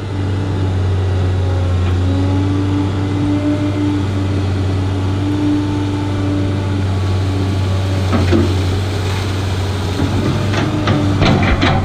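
Large hydraulic excavator's diesel engine running steadily under load while it digs, with a few brief knocks in the second half.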